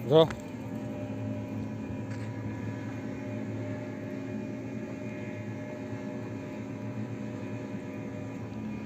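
A steady low mechanical hum made of several held tones. A brief wavering voice sound comes right at the start and is the loudest moment.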